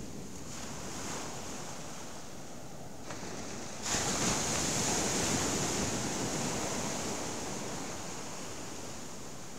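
Rough sea surf on a sandy beach, waves breaking and washing up the shore. One wave crashes suddenly about four seconds in, and its rush fades slowly.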